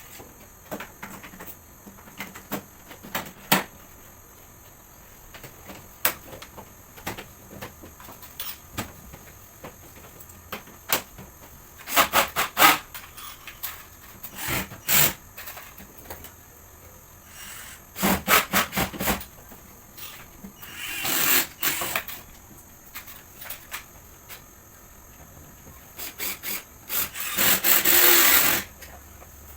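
Hand work on an air conditioner unit: scattered clicks and knocks of parts and tools being handled, with a few short rasping bursts of tool noise, the longest near the end.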